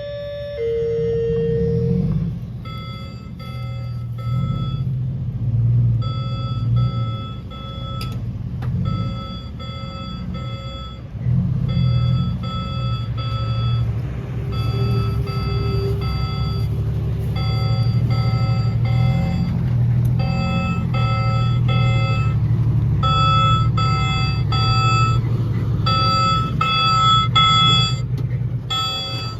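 Heavy diesel construction machine running, with a repeating electronic back-up alarm beeping over the engine rumble, the beeps in quick runs with short gaps from about two seconds in.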